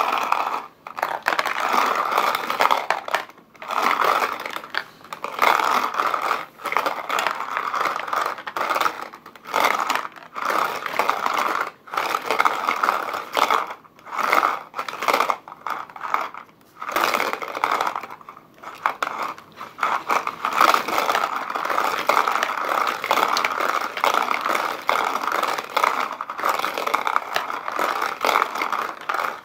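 Hand-cranked cardboard garapon lottery drum turning, with a continuous scraping rattle of small balls tumbling inside it, broken by short pauses every second or two between turns.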